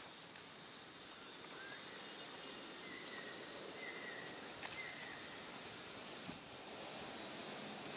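Faint outdoor ambience: a steady hiss with a few short, high chirps and a couple of sharp clicks in the middle.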